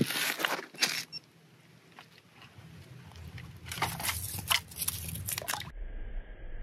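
Hands handling ice-fishing gear on snowy ice: a scattered series of crunches, scrapes and clicks, quieter between about one and three seconds in. Near the end the sound cuts abruptly to a dull, muffled low hum.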